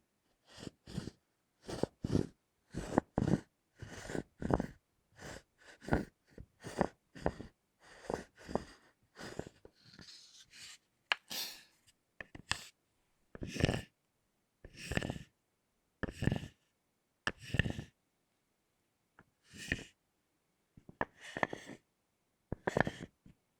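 Pieces of a thick chocolate bar knocked against each other, giving irregular short clicks and knocks about one or two a second, with a brief rubbing sound about ten seconds in.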